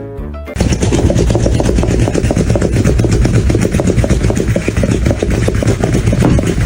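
A loud, rough motor noise that starts suddenly about half a second in and runs steadily, cutting off the music.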